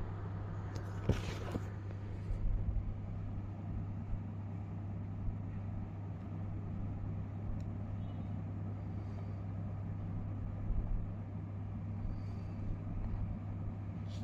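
Steady low mechanical hum, with a sharp click about a second in and a few faint handling rustles and ticks.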